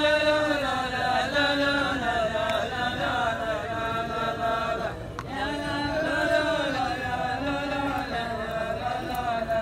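A row of men chanting a rajaz verse together in unison, in long drawn-out melodic lines. There is a brief pause about halfway through.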